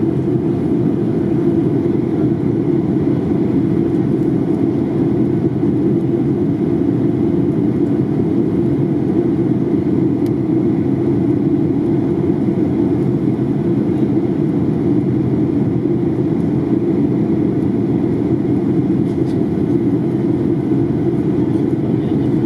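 Steady rush of airflow and engine noise inside the passenger cabin of a Boeing 737-800 in flight, with its CFM56-7B engines running; the sound is even and unchanging, heaviest in the low-to-mid range.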